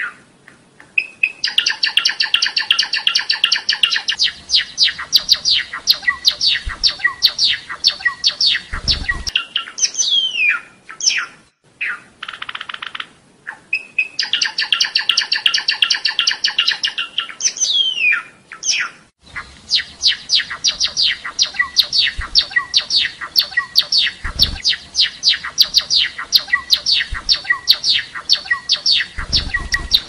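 Java sparrow singing: long runs of rapid, dry clicking notes, broken twice by short falling whistled notes and brief pauses. A few low thumps sound under the song.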